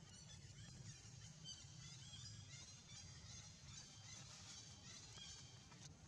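Near silence: faint outdoor ambience with scattered short, high chirps over a low steady hum.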